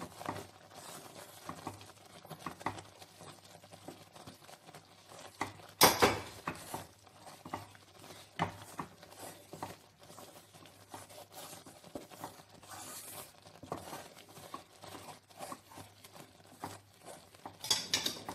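Wooden spatula stirring a milk-and-flour white sauce in a pan, scraping and tapping irregularly against the pan, with one sharp knock about six seconds in and a few louder scrapes near the end.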